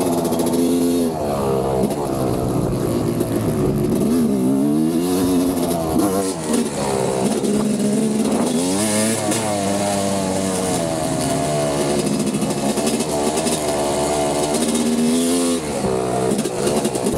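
Motocross bike engine running hard, its pitch rising and falling again and again as it revs up and drops back.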